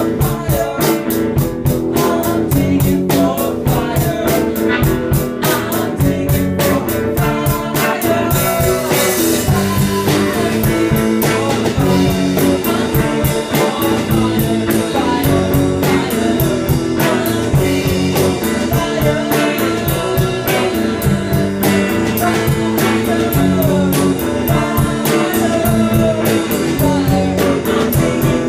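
Rock band rehearsing live: electric guitar and drum kit playing a song together at full volume, with a steady beat and a cymbal crash about eight seconds in.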